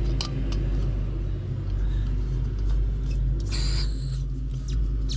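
A steady low rumble and hum throughout, over small metal clicks as a camping gas-stove burner is screwed onto its gas canister, with a short hiss about three and a half seconds in.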